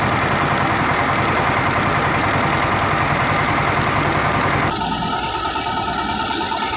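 Vehicle engine and drivetrain running steadily with a fast, even ticking rhythm. About two-thirds of the way through, the sound changes abruptly: it drops in level and steady whining tones come through.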